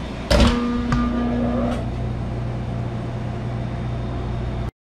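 Steel double doors of a Hobart commercial convection oven swung shut with a loud metallic clang that rings for over a second, followed by two lighter clicks. A steady low hum of kitchen machinery runs underneath, and the sound cuts off abruptly near the end.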